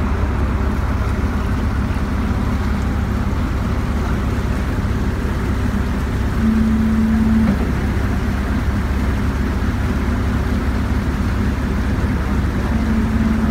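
A yacht's engine drones steadily while the boat is under way, with wind rushing on the microphone. A brief, louder steady hum comes in over it about halfway through and again near the end.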